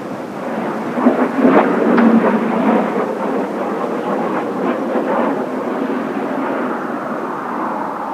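Jet noise from Blue Impulse Kawasaki T-4 jets passing: a loud rumble with crackle, loudest about two seconds in, then a steady rumble that slowly eases.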